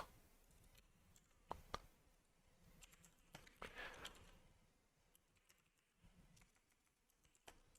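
A few faint keystrokes on a computer keyboard, otherwise near silence: two taps about a second and a half in, a short run around four seconds, and one more near the end.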